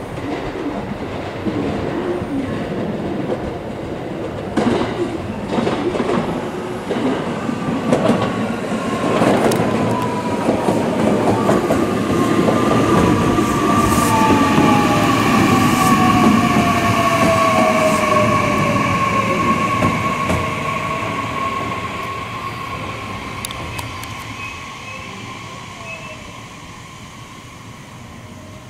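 A JR West 227 series electric commuter train comes into the station. Its wheels click over the rail joints as it passes, then a falling motor whine sounds as it slows to a stop, and the train sound fades away near the end.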